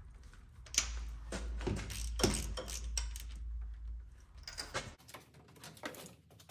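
Ratchet and socket clicking and clattering as loose spark plugs are tightened down in the engine bay of a 5.3 L V8, a series of irregular short clicks and knocks. A low rumble runs under the first part and cuts off suddenly about five seconds in.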